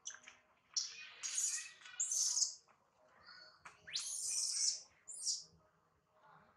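Baby macaque screaming in a run of shrill, very high-pitched bursts, one of them sweeping sharply upward partway through, as it is pulled from its mother.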